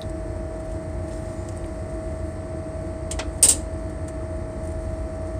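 Steady machinery hum aboard a towboat, a constant low rumble with a steady mid-pitched tone, broken by one short, sharp hissing sound a little past the middle.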